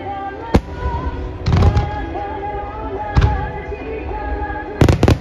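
Fireworks bursting over music with a pitched, wavering melody line: a single sharp bang about half a second in, a cluster of booming, crackling bursts around a second and a half, another bang a little after three seconds, and a quick run of bangs near the end.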